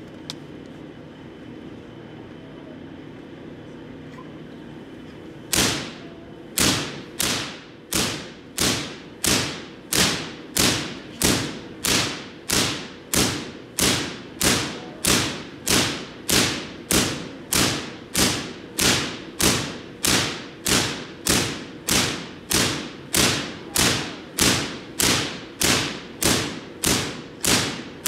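Artificial lightning from a giant Van de Graaff generator arcing onto a metal Faraday cage: a steady low hum, then from about five seconds in a fast, even run of sharp electric cracks, about one and a half a second, each with a brief ringing tail.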